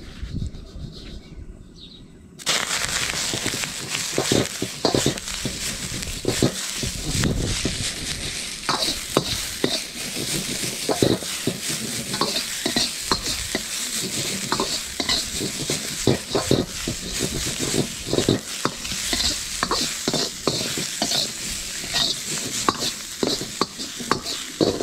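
Bok choy and mushrooms tipped into a smoking-hot wok about two seconds in, setting off a sudden loud sizzle. They are then stir-fried: a steady hard sizzle with a metal wok ladle repeatedly scraping and clinking against the wok.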